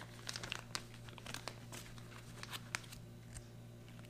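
Crinkling and rustling of paper-and-foil food pouches being handled and folded: a run of small, irregular crackles.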